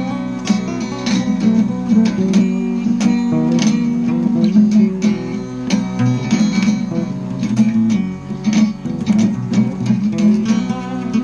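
Background music led by strummed and plucked acoustic guitar, with a steady rhythm of chords.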